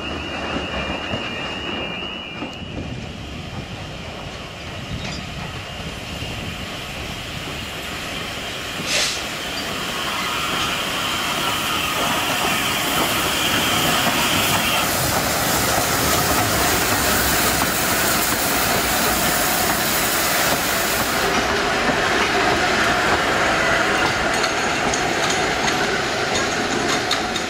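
Narrow-gauge steam tank locomotive and wooden carriages of the Isle of Man Steam Railway on the move. Wheels squeal briefly at the start, then the train grows louder from about ten seconds in as it runs through the station, with wheels clattering over the rail joints and steam hissing.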